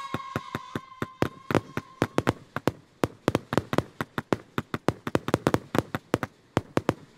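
Fireworks: a fading whistle dies away about two seconds in, under a rapid, irregular string of sharp cracking reports, several a second.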